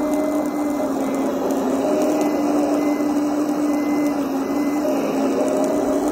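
Small electric motor of a radio-controlled construction model whining steadily, its pitch dipping slightly a few times as the load changes.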